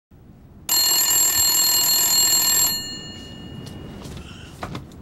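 Desk telephone's bell ringing once for about two seconds, followed by faint rustling with a couple of small knocks near the end.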